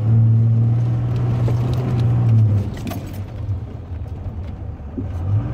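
Diesel pickup truck engine pulling hard, heard from inside the cab: a loud steady drone for about two and a half seconds that then drops to a lower, rougher rumble.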